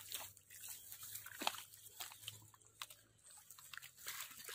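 Faint, scattered clicks and crunches of hands digging and scooping through wet mud along an eel burrow.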